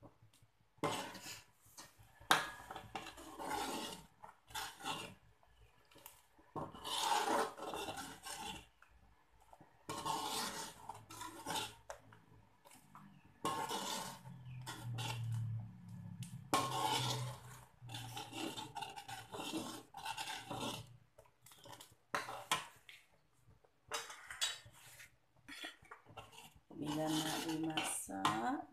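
Metal ladle scraping and stirring around a metal wok of meat soup thickened with sago flour, in repeated scraping strokes about a second apart with short pauses between.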